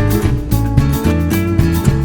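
Background music led by a plucked acoustic guitar, with a steady rhythm of strummed notes over a bass line.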